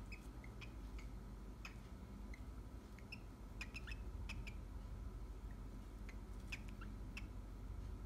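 Cockatiel hen giving short, quiet chirps at irregular intervals, her soliciting mating call.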